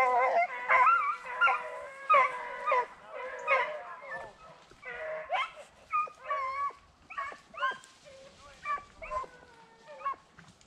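Beagles baying on a rabbit's track: a run of short, pitched yelps and bawls, loudest and thickest in the first three seconds, then coming further apart and fainter.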